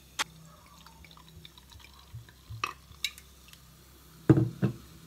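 Homemade lemonade, naturally carbonated by about a month of fermentation in the bottle, fizzing in a glass champagne flute: faint crackling of bubbles with a few small glass clinks. A louder knock comes about four seconds in.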